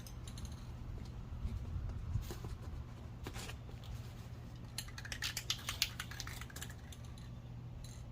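Spray paint can being shaken, its mixing ball rattling in clusters of sharp clicks, over a steady low rumble of wind on the microphone.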